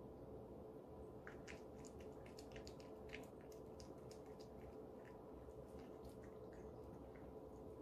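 A cat eating wet food from a ceramic bowl: faint, irregular wet clicks and smacks of chewing, starting about a second in, over a steady low hum.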